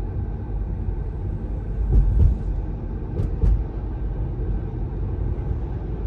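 Steady low road and tyre rumble inside the cabin of a Tesla Model 3 cruising at about 27 mph, with no engine note since the car is electric. The rumble swells into brief louder thumps about two seconds in and again around three and a half seconds.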